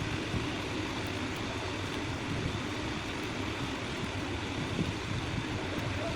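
Steady low rumble and hiss of constant background noise, with no distinct events.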